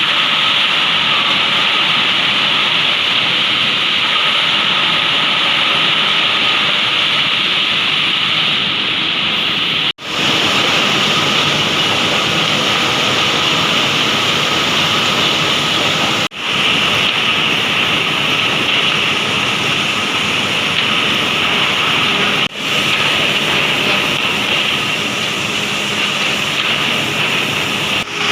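Steady, loud running noise of the woodworking machinery on an MDF board processing line, a dense hiss strongest in the upper-middle range. It drops out briefly four times, about every six seconds, and comes straight back.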